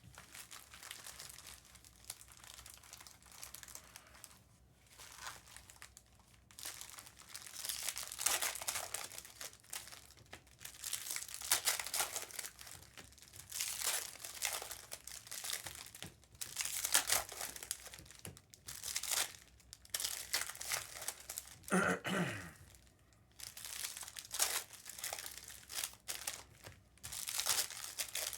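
Foil trading-card pack wrappers crinkling as they are torn open and handled, in irregular rustling bursts with sharp little clicks. One brief throat sound, like a cough, comes about three-quarters of the way through.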